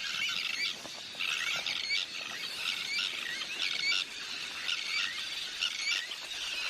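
A breeding colony of terns calling: many short, high calls overlapping without a break.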